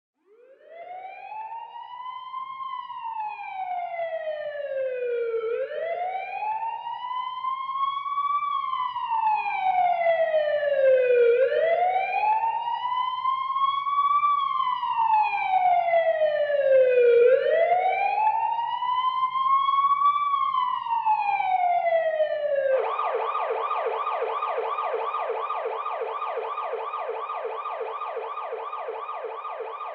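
Ambulance siren in a slow wail, rising and falling about every six seconds, over a low engine hum, growing louder toward the middle. About three quarters of the way in it switches to a fast rapid-cycling yelp, which slowly fades.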